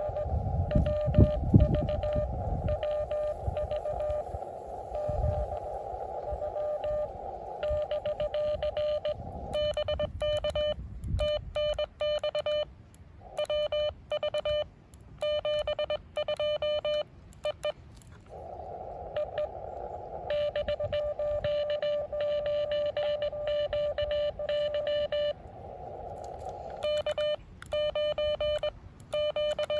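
Morse code from an amateur radio transceiver: a single steady tone keyed on and off in dots and dashes. Between some runs of code the receiver's narrow CW filter hiss is heard. A few low thumps come in the first few seconds.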